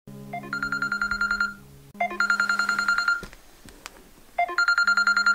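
Smartphone alarm ringing: a quick pulsing electronic tone in three bursts about two seconds apart.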